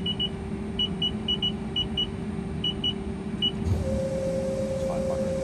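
Haas ST-30Y CNC lathe: a rapid string of short electronic beeps from the control's keypad as the spindle is commanded, over the machine's steady hum. About three and a half seconds in, the spindle starts and a steady whine sets in as the chuck comes up to about 500 RPM.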